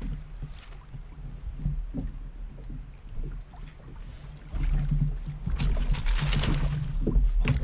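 Movement in a kayak while a hooked fish is fought: a low rumble with scattered knocks that grows louder about halfway through, then a burst of crackling, splashy noise for about two seconds near the end.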